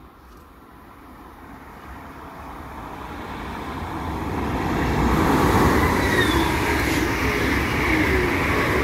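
Stadler KISS double-deck electric train approaching and passing close by: the rumble of its wheels on the rails grows steadily louder to a peak about five to six seconds in, then holds, with faint whining tones over it.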